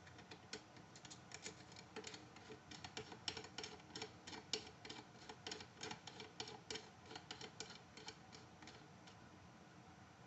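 Faint, irregular light clicks, several a second, as the swivel-fitted magazine cap is screwed back onto a pump shotgun's magazine tube. The clicks stop about nine seconds in.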